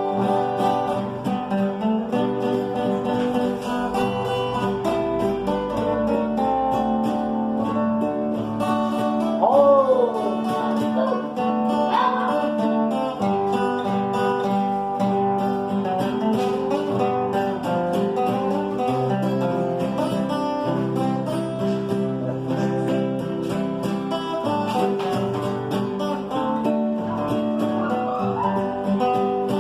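Instrumental break of plucked acoustic guitars playing an old Brazilian country ballad, with a brief sliding note about ten seconds in.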